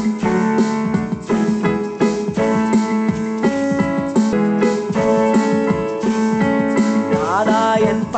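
Instrumental music: a piano-sound keyboard playing a melody over chords, with a rising run of notes about seven seconds in.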